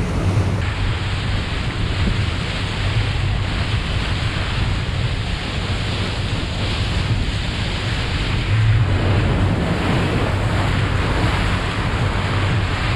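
A motor tour boat under way: the steady drone of its engine under the rush of the wake churning along the hull, with wind buffeting the microphone.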